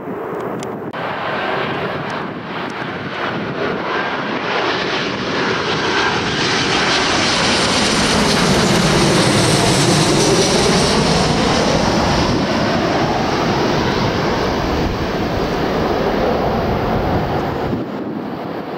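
Airliner engines passing close by: the noise builds to a peak about halfway through and then fades, with a hollow tone that sweeps down and back up as the aircraft goes past.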